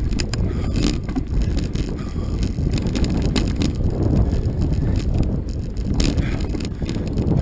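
Mountain bike riding over a dirt singletrack: a steady rumble of the tyres on the rough ground, broken by frequent sharp clicks and rattles from the bike as it goes over bumps and debris.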